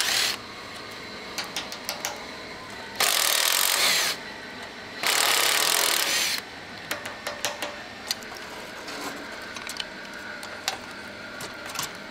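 Cordless impact driver running in short bursts, undoing fasteners on a rusty steel tank dashboard: one burst stops just after the start, then two more of about a second each. Between and after them come light clicks and rattles of metal parts and old wiring being handled.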